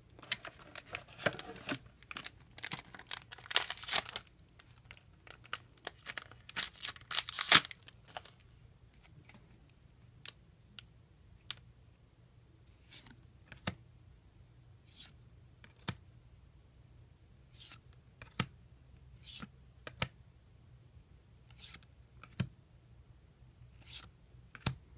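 Foil trading-card booster pack being torn open and crinkled in a run of loud rustling bursts over the first eight seconds or so. After that, single cards are flicked off the stack one by one with a soft snap about every second.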